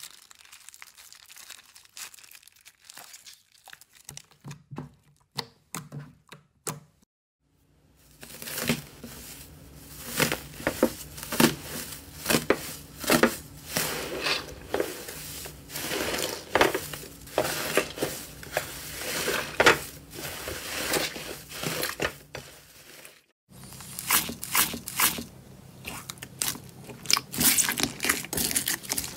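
Hands squeezing, stretching and pressing slime, making a dense run of sticky crackles, pops and squelches. The sound is fainter at first, grows louder from about eight seconds in, and breaks off briefly twice where the clips change. Near the end the slime is mixed with foam beads, which add a crunch.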